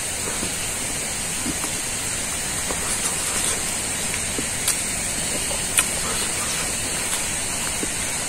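A person eating rice by hand and chewing, with small soft clicks and two sharper clicks about halfway through, over a steady high-pitched hiss of outdoor background.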